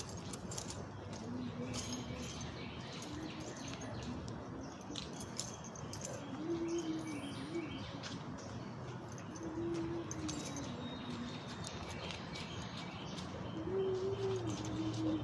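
A dove cooing in short low phrases, four times, with small birds chirping higher up and scattered light clicks and taps.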